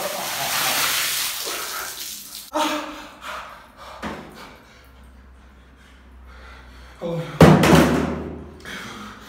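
Water from a plastic bucket poured over a man's head and splashing onto a tiled floor for about two seconds. Scattered knocks follow, and a louder thud comes about seven seconds in.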